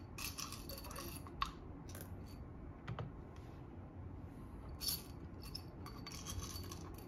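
Small clicks, taps and rustles of coffee-brewing gear being handled, with a sharper clink about a second and a half in and again near three and five seconds.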